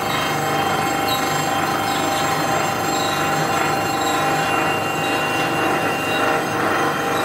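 Grinding wheel of a crusher-blade sharpening machine running against a steel plastic-crusher blade as the blade carriage is pushed past it: a steady grinding hiss with a ringing tone through it.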